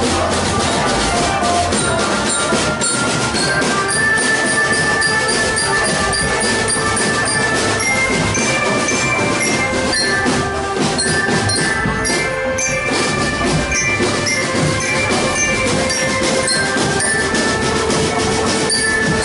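Marching drum band playing: snare and bass drums beat a dense, steady rhythm under a sustained melody of held notes from the band's melody instruments.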